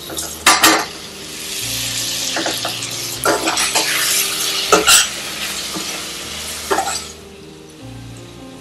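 Boiled potato pieces tipped into a hot steel pot of fried onions and spices, with a couple of sharp clatters as they go in. They then sizzle as they are stirred, with knocks of metal against the pot. The sizzle dies down about seven seconds in.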